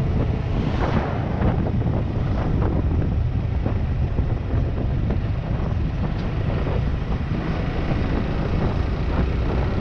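Wind rushing over the microphone of a motorcycle riding at speed, with the engine and road noise running underneath as a steady rumble.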